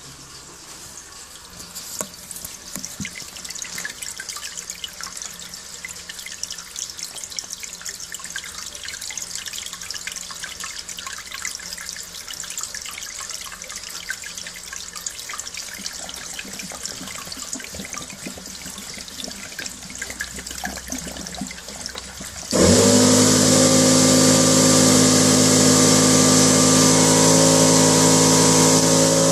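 Sludgy flush water from a heating circuit pouring out of a hose into a toilet bowl, a steady splashing. About three-quarters of the way through, the flushing rig's motor starts abruptly and runs loud and steady with a hum, drowning out the water.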